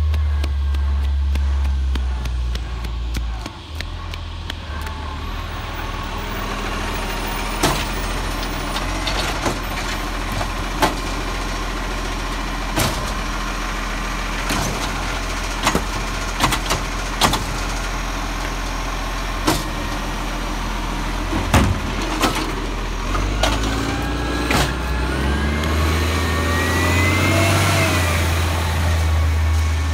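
Side-loading garbage truck with an automated arm emptying a green-waste wheelie bin: the engine runs with a deep rumble, then a steady hum while the arm works, with a series of sharp knocks and clunks as the bin is lifted, shaken and set down. Near the end the engine picks up again with a rising and falling whine as the truck moves off.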